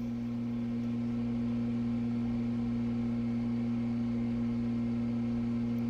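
Subaru-powered Kitfox Model 4 light aircraft's engine and propeller droning steadily in flight, heard from inside the cockpit: an even hum held at one pitch.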